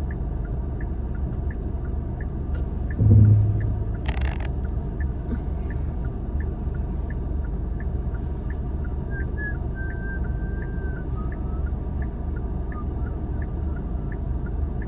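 Steady low rumble inside a car cabin, with a turn-signal indicator ticking evenly about twice a second. A dull thump comes about three seconds in, and a sharp click a second later.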